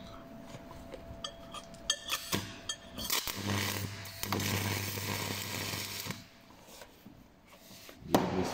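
Stick (MMA) welding on stainless steel with an OK 63.30 electrode at about 100 amps. A few clicks and taps come first, then an arc burns as a tack weld for about three seconds: a steady crackling hiss over a low hum, which cuts off suddenly.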